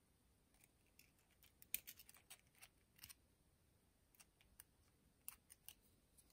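Light metallic clicks and ticks as a pointed metal tool pokes at the planetary gears and carrier inside the Makita DF001G drill gearbox, in two short flurries: one about two seconds in, and another a little after four seconds.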